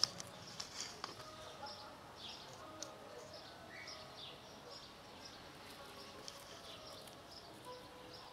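Faint chirping of small birds, many short high calls scattered throughout, with a few soft clicks and rustles.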